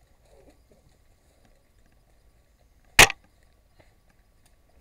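A single shot from a VSR-10 bolt-action spring airsoft sniper rifle about three seconds in: one short, sharp report.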